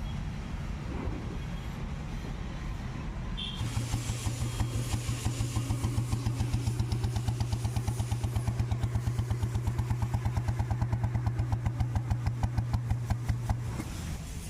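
The single-cylinder engine of a freshly restored 1991 Royal Enfield Bullet motorcycle starts about three and a half seconds in. It runs with an even, regular beat for about ten seconds, then shuts off near the end.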